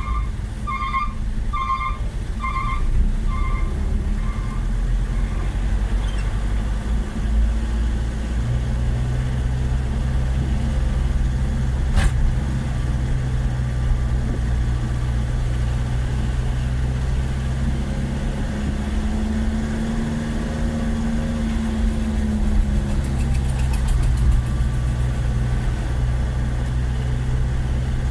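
Heavy diesel engine of road-paving machinery running steadily, its pitch rising and falling a little about two-thirds of the way through. A reversing alarm beeps at about one and a half beeps a second for the first few seconds, then stops.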